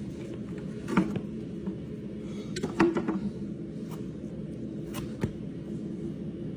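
A few sharp clicks and knocks from farrier's tools working a horse's hoof: one about a second in, a quick cluster near the middle, and two close together near the end, over a steady low hum.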